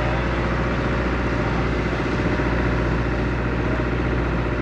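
Boat engine running steadily under way, a low even hum.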